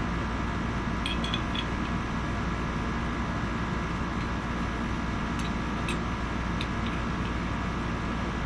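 Steady room hum, like a fan or air conditioner, with a few faint light clicks of small gun-sight parts being handled about a second in and again around five to seven seconds.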